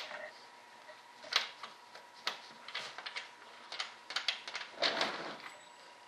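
Small steel washers and bolts clinking and clicking as they are handled and fitted by hand, an irregular string of light metallic taps, some with a brief ring.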